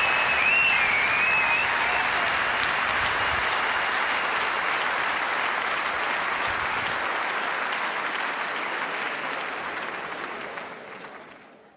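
A theatre audience applauding, with a brief wavering whistle in the first two seconds. The clapping fades out near the end.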